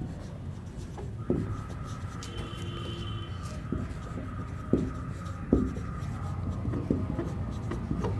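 Marker pen writing on a whiteboard: soft strokes broken by several sharp taps as the tip meets the board, the loudest about five seconds in. Under it run a low steady hum and a faint steady whine.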